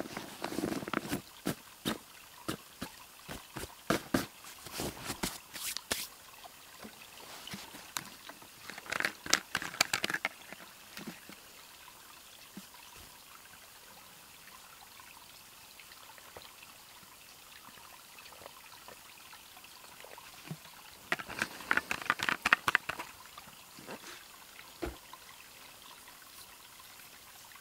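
Small forest creek trickling steadily, with bursts of rustling and clicking as gear is handled in a backpack during the first ten seconds and again about twenty seconds in.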